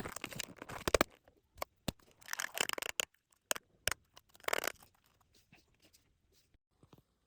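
Packaging being handled and opened by hand: three bursts of crinkling and tearing with sharp clicks between them, dying away after about five seconds.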